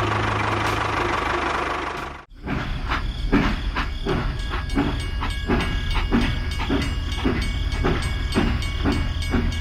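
A small machine running with a steady drone that cuts off abruptly about two seconds in, followed by an even rhythmic chugging of about two beats a second.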